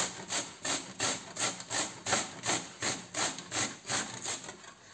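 White radish (mooli) grated lengthwise on the coarse side of a stainless steel box grater: quick, even rasping strokes, about three a second, dying away near the end.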